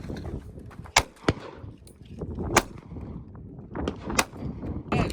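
Sharp cracks of air-gun shots, several spread over a few seconds, the first about a second in.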